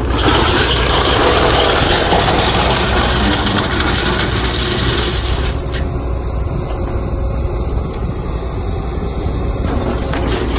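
Excavator-mounted Orsi TPF forestry mulcher, its spinning rotor shredding tree branches, over the excavator's diesel engine running under load. A dense grinding of wood being chipped dominates at first, then eases about five and a half seconds in to the steadier run of the engine and rotor.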